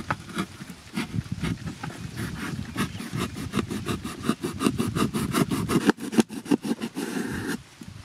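Kitchen knife sawing through a corrugated cardboard box: a quick, irregular run of short scraping strokes as the blade is worked back and forth through the board.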